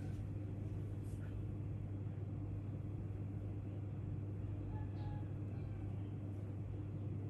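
A steady low hum over a constant background noise, with faint brief squeaks about one second and five seconds in.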